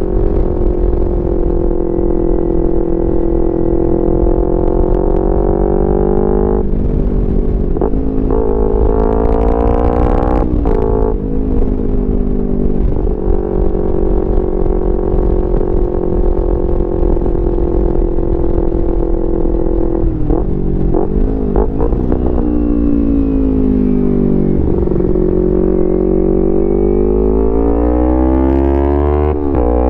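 Kawasaki Ninja 250R parallel-twin engine through a full Graves racing exhaust, ridden on the road. It holds steady revs, then climbs in pitch through a couple of gear changes with short breaks between them. Near the end it eases off with falling pitch, then revs up again.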